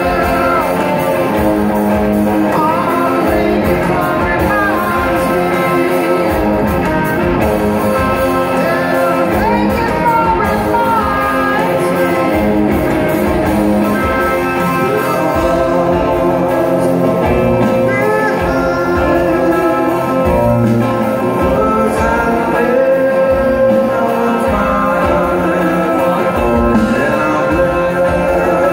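Rock band playing live in an arena, heard from the audience: a male lead vocal sings over guitar accompaniment.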